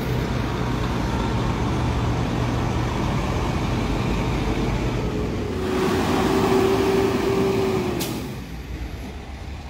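Diesel engines of fire trucks running as the trucks drive slowly past. About halfway through one passes close, louder and with a steady whine, and the sound drops off near the end.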